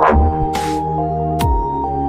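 Electronic background music with a beat: deep bass kicks, hissing snare hits and sustained synth notes.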